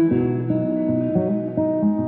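Background music: a guitar playing plucked notes.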